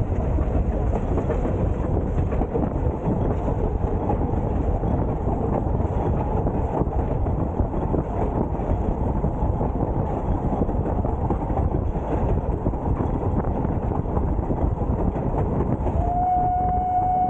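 Ffestiniog Railway narrow-gauge steam train running, heard from a wooden coach window: a steady rumble of the coaches and wheels on the track. About sixteen seconds in, the locomotive's whistle starts, one steady high note held.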